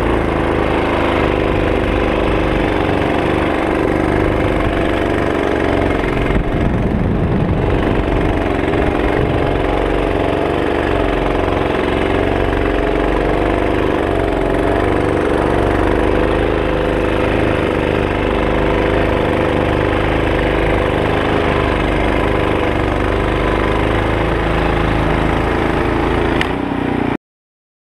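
Poulan Pro 24-inch 208cc two-stage snow thrower with a Briggs & Stratton single-cylinder engine, running steadily under load as it clears and throws snow. The sound cuts off abruptly near the end.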